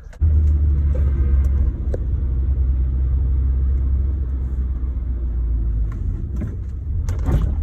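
Car engine running close by: a steady low rumble that cuts in suddenly just after the start.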